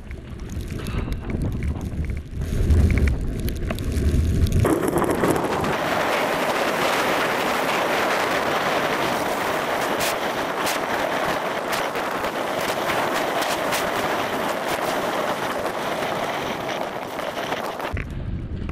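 Wind noise on a helmet-mounted action camera and skis scraping over hard-packed snow on a fast downhill run. The audio is fast-forwarded. A low rumble in the first few seconds gives way, about four and a half seconds in, to a dense hiss with scattered clicks that cuts off shortly before the end.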